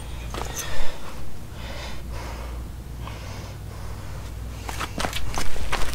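A person breathing hard, with snort-like breaths, then a quick run of sharp knocks and clicks near the end, over a steady low hum.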